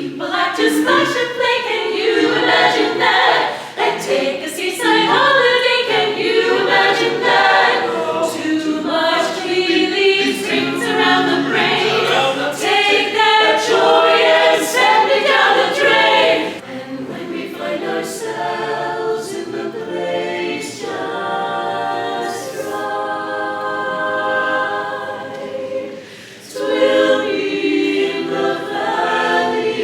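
A cappella choir singing in close harmony with no instruments. A fuller, moving passage gives way to softer held chords a little past halfway, with a brief lull before the voices swell again near the end.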